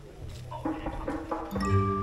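Talking voices, then about one and a half seconds in a struck note rings out and holds, slowly fading, as music begins.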